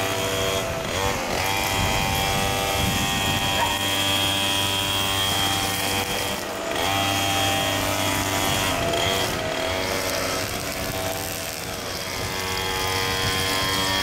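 Backpack leaf blower running steadily. Its pitch dips and comes back up a few times as the throttle is eased off and opened again.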